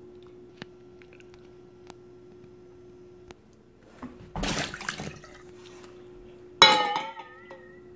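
Liquid poured from a stainless steel pot into a glass measuring cup, with a short splashing pour about halfway. Near the end comes a sharp clink of metal against glass that rings on with a wavering tone, over a steady faint hum.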